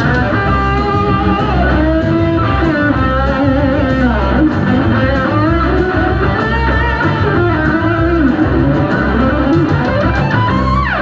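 Up-tempo soul-pop music with no vocal: an electric guitar playing a bending lead line over bass and drums.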